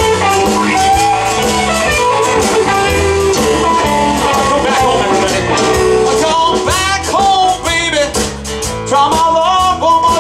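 Live rock band playing: electric guitars, bass and drums, with a man singing into the mic from a little past halfway.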